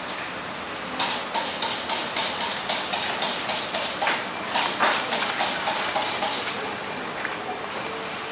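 Old neoprene drysuit neck seal being pulled away from its glued joint with the suit fabric, giving a run of short tearing rips, about four a second, for some five seconds with a brief pause midway, over a steady hiss.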